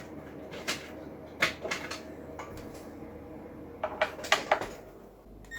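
Scattered light clicks and knocks of tools and parts being handled on a workbench, with a quick cluster of sharper taps about four seconds in.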